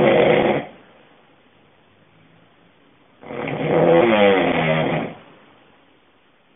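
A sleeping person snoring with a buzzing, pitched snore: one snore trails off about half a second in, and another, about two seconds long, comes about three seconds in, with quiet breathing between.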